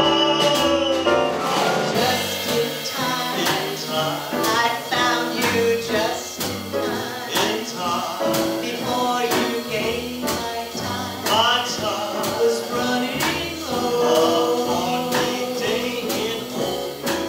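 Grand piano playing, with a woman singing along to it.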